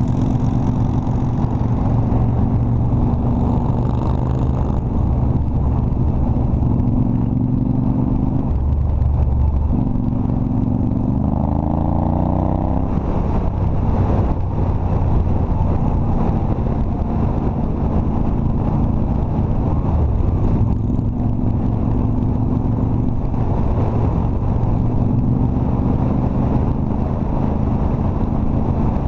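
Cruiser motorcycle's engine running under way at road speed, heard from the saddle. About nine seconds in the engine note drops away for a moment, then climbs steadily as the bike accelerates again.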